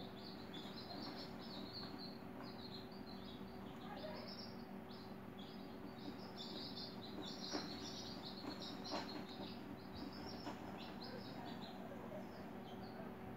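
Small birds chirping rapidly and continuously in short high tweets, over a steady low hum. A few light clicks come in the middle.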